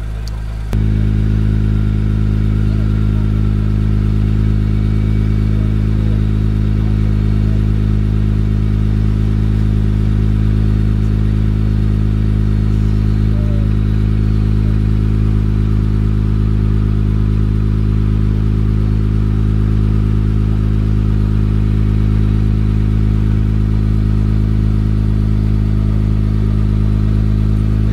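2016 Honda NSX's twin-turbo V6 idling steadily, an even low drone.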